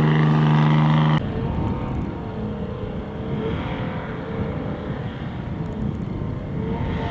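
Ranger 1500 side-by-side exhaust through an EVP center-exit muffler. The engine is held at steady high revs, then about a second in it cuts abruptly to a lower, rougher rumble that runs on unevenly.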